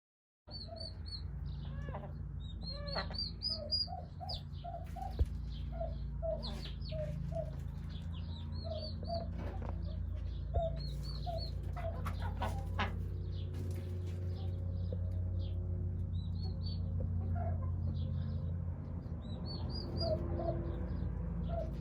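Newly hatched turkey poults peeping in short high rising calls, mixed with runs of a hen's lower clucks and a few scuffling clicks, over a steady low hum. The sound cuts in about half a second in.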